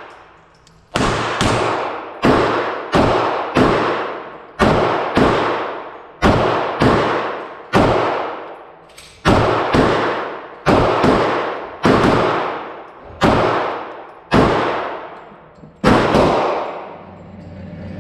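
Springfield Armory XD 9mm pistol firing a string of about fifteen shots, irregularly spaced about half a second to a second and a half apart. Each shot rings out in a long echo off the indoor range's walls. The last shot comes about two seconds before the end.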